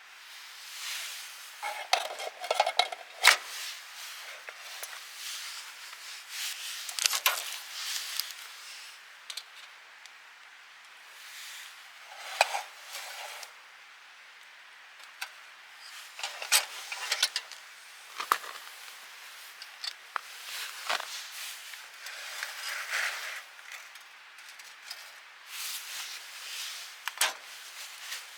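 Camp cookware and utensils being handled: scattered clinks, taps and scrapes, some sharp, with short pauses between them.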